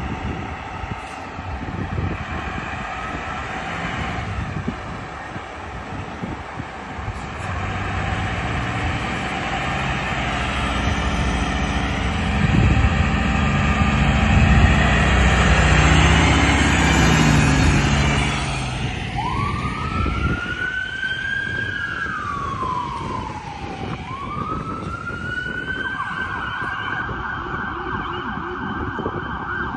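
Pierce fire engine's diesel engine running loudly as it pulls out and gets under way, growing louder about halfway through. Then its siren wails, rising and falling twice before settling on a held high tone.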